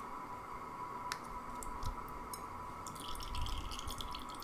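Thick bael fruit pulp and water being poured into a small plastic strainer and dripping through into a bowl, faint and soft, with one small click about a second in.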